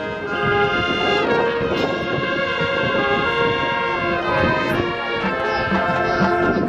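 Marching band playing, brass section (trumpets and trombones) sounding sustained chords that change every second or so, with drums underneath.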